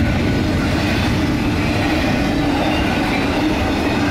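Union Pacific freight train of double-stack container cars rolling past: a steady, loud rumble of steel wheels on the rails.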